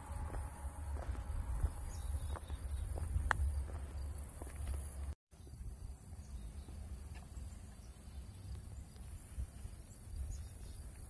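Steady high-pitched chorus of crickets and other insects over a low rumble, dropping out briefly about five seconds in.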